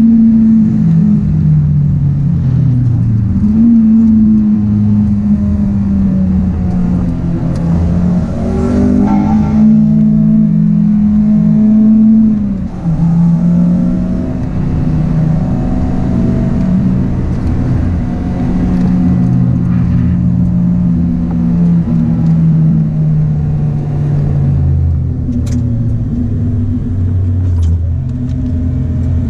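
Honda Integra DC5 Type R's four-cylinder i-VTEC engine heard from inside the cabin, driven hard at high revs with its pitch climbing and falling through gear changes and lifts for corners. The sound drops sharply about twelve seconds in.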